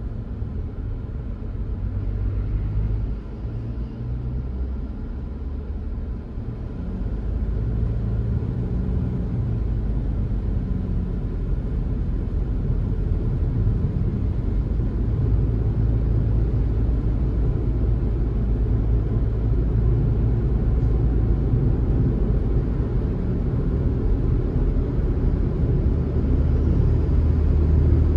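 Car driving steadily along an open highway: a continuous low rumble of road and engine noise that grows a little louder about seven seconds in.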